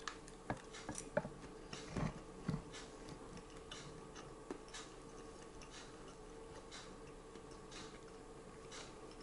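A man chewing a mouthful of kebab meat slices, heard as faint scattered mouth clicks and smacks, most of them in the first two and a half seconds, over a faint steady hum.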